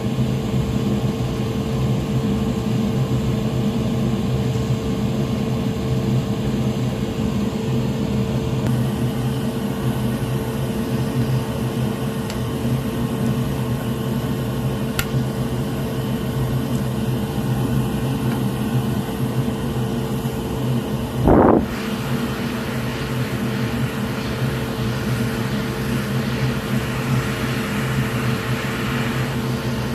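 Steady hum of a small electric fan or blower motor running, with one brief loud sound about twenty-one seconds in.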